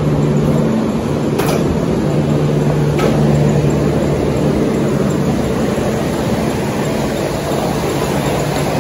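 Steady low hum of air-conditioning or ventilation, with a constant drone, and two sharp clicks about a second and a half and three seconds in.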